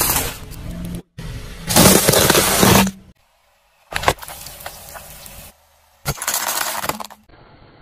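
A car tyre crushing a series of objects on pavement in separate short clips: loud bursts of crunching and cracking, cut off abruptly between clips, with a sharp crack about four seconds in and a brief silence just before it.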